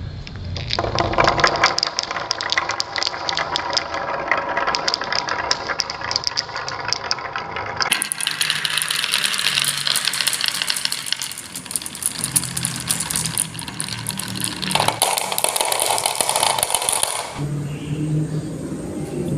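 Many marbles rolling and clattering along a marble run track, a dense rattle with rapid sharp clicks as they knock against the track and each other. The sound changes abruptly about eight seconds in and again near the end.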